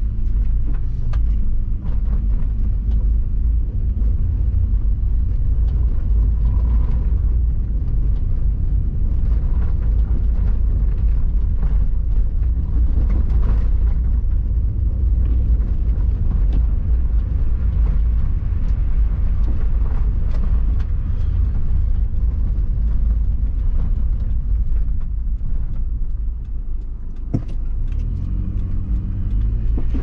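Steady low rumble inside the cabin of a moving 2005 Subaru Forester: engine and snow tires on a snowy road, with scattered small clicks and a single sharp knock near the end.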